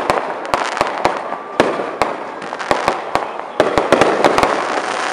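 Aerial fireworks going off: an irregular series of sharp bangs and cracks over a continuous crackle, with a quick flurry of bangs near the end.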